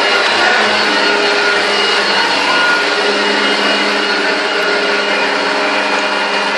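Hoover Junior U1104 upright vacuum cleaner running steadily, a loud motor hum with a steady whine over it.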